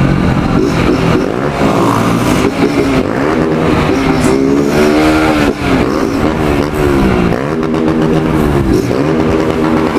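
Motorcycle engine running under way, its pitch rising with the throttle and dropping back several times as the rider accelerates and changes gear.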